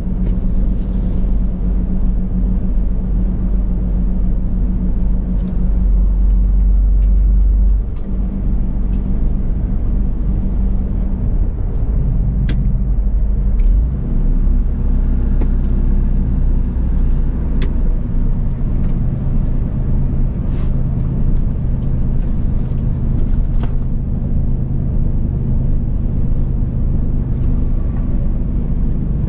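Lorry's diesel engine running under way, a steady low drone. The engine note drops about eight seconds in and shifts again a few seconds later, with a few faint clicks.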